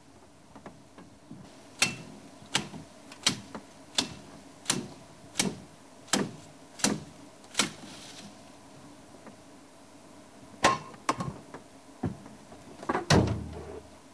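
Machete chopping a tree branch: nine sharp chops about 0.7 s apart, a pause, then three quicker chops. Near the end comes the loudest moment, a heavier cluster of knocks with a deep thud.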